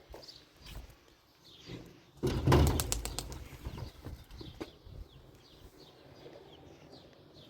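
A pigeon's wings flapping in a short, rapid burst a little over two seconds in, with faint high bird chirps scattered throughout.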